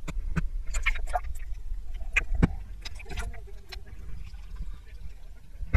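Wind rumbling on a camera microphone held low over the water, with scattered sharp knocks and clicks and light water splashes as a hooked snook is brought alongside the boat. The loudest knock is a thump about two and a half seconds in.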